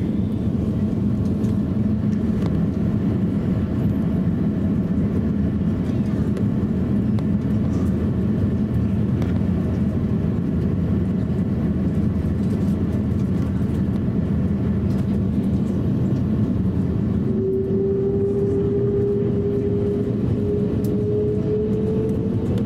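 Cabin noise of an Airbus A350-1000 on the ground, its Rolls-Royce Trent XWB engines running as it taxis: a steady low rumble. About 17 seconds in, an engine whine starts and slowly rises in pitch as the engines spool up.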